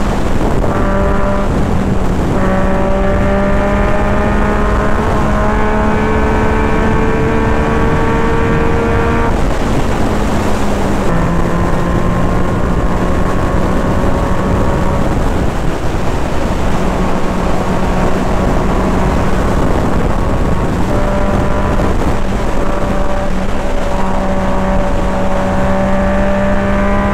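Yamaha MT-09 three-cylinder engine running at steady high revs at highway speed, with wind rushing over the microphone. The engine note drops about ten seconds in and climbs back up a little past twenty seconds.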